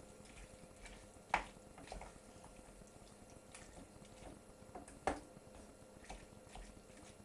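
A spoon stirring cooked vegetables in a saucepan: soft wet squelching with a few sharp knocks, the loudest about a second and a half in and again about five seconds in.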